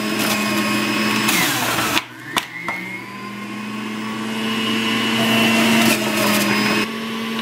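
Electric centrifugal juicer motor running with a steady whine as carrots are fed down the chute and shredded. Its pitch sags about a second in, it breaks off briefly around two seconds, then it runs on, growing louder.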